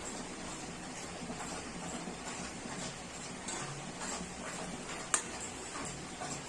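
Milk heating to a foaming boil in an aluminium kadai, stirred with a metal ladle: a steady hiss with scattered light ticks and taps, and one sharper click about five seconds in.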